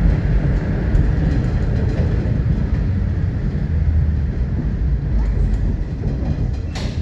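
Moderus Alfa HF07DC low-floor tram running along the track: a steady low rumble of wheels on rails and drive gear, easing slightly toward the end, with a short sharp knock just before it ends.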